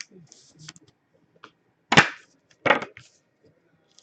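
Two sharp clacks about two-thirds of a second apart, amid faint clicks and rustling of trading cards and packaging being handled on a table.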